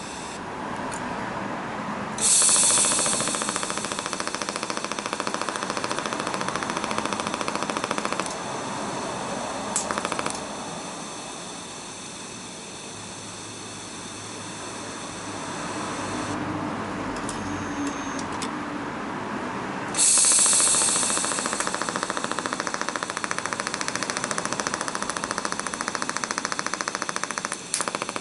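Honda CBX1000 inline-six engine running through a titanium full exhaust with a one-off titanium silencer, a fast, even pulsing note. It is revved up and held twice, about 2 seconds in and again about two-thirds of the way through, and drops back to a lower, quieter running speed in between.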